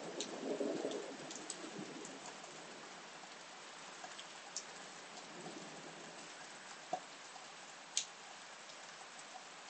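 Steady rain falling during a thunderstorm, with scattered sharp drips striking a surface. A rumble of thunder dies away in the first second or so, and a faint low rumble returns briefly around the middle.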